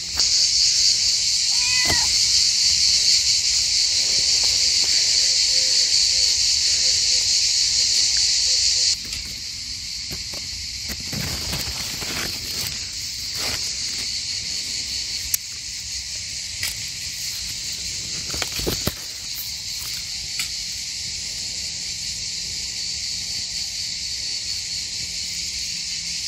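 A steady high-pitched chorus of insects chirring in the garden, dropping a little in loudness about nine seconds in. Brief rustles of foliage and straw mulch come now and then as tomatoes are handled and picked.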